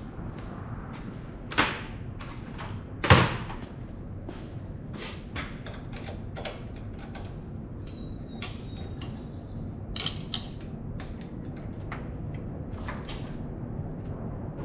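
Hand tools and metal parts clicking and clanking in irregular knocks during work on an engine, with two louder clanks about one and a half and three seconds in, over a steady low hum.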